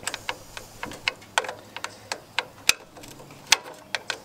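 Irregular sharp metallic clicks and taps of a wrench being worked on a bolt.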